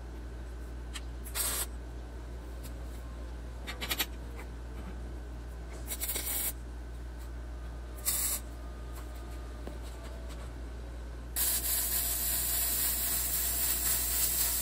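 MIG welder tacking steel sheet panels together: four short bursts of arc hiss a couple of seconds apart. About eleven seconds in, a continuous weld starts and hisses steadily.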